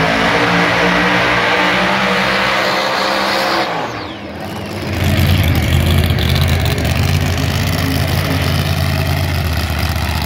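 Drag racing cars at full throttle down the strip, a high steady engine note that cuts off suddenly about four seconds in as the drivers lift. About a second later a drag car's big engine rumbles at low speed, loud and close, as it rolls past.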